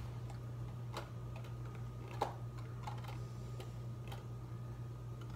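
A few faint, irregular clicks and taps from a cardboard pasta box being handled, over a steady low hum.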